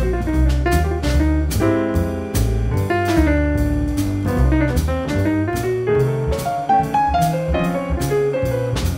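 Jazz piano trio playing: acoustic grand piano in the lead over walking upright bass notes, with the drum kit keeping time in steady cymbal strokes.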